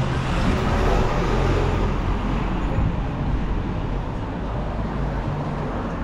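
Road traffic on a city street: passing vehicles make a steady rumble of engines and tyres. It swells over the first couple of seconds, then eases slightly.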